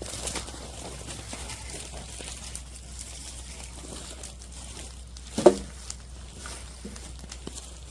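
Brush pile burning, with a steady background of small crackles and pops. About five and a half seconds in, a single short, louder pitched sound cuts through.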